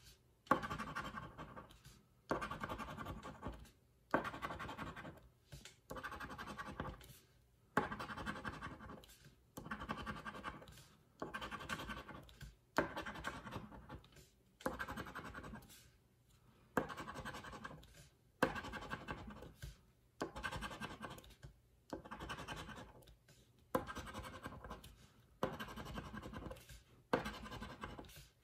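A round scratcher tool scraping the coating off the number spots of a scratch-off lottery ticket, in repeated strokes. Each stroke starts sharply and trails off, about one every one and a half to two seconds.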